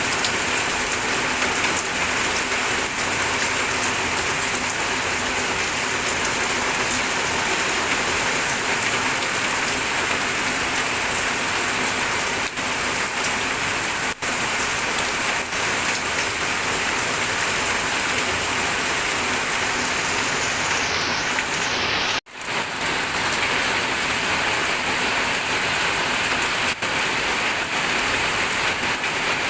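Steady rain falling, an even dense hiss of drops, with a momentary break about three-quarters of the way through.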